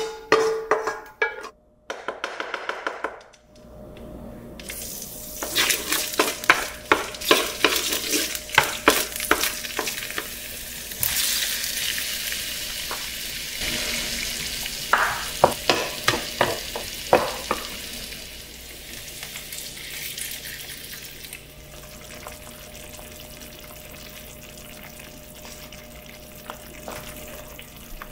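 Wooden spatula scraping the last scrambled egg out of a carbon steel wok, then tomato wedges hitting hot oil and sizzling loudly while the spatula stirs them with quick clacks and scrapes against the wok. About twenty seconds in the sizzle settles to a quieter, steady cooking sound as the tomatoes soften into sauce.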